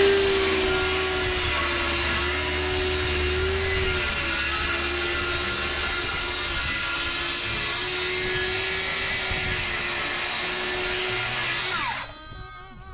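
DeWalt cordless circular saw ripping a long straight cut through a sheet of OSB, its motor running at a steady pitch under load. It shuts off near the end and winds down.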